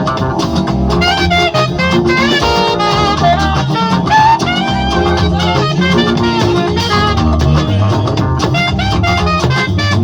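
Instrumental music with horns playing a melody over bass and drums with a steady beat.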